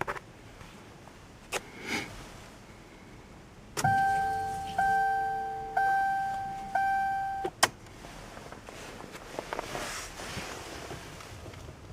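Car warning chime sounding four times, about a second apart, each chime fading before the next. A few clicks come before it and a sharp click right after.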